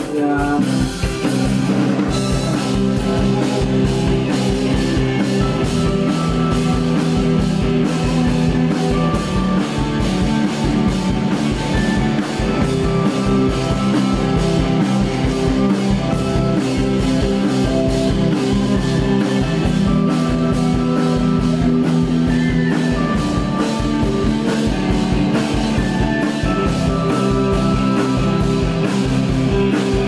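Live rock band playing at full volume: electric guitars and bass over a steadily beating drum kit.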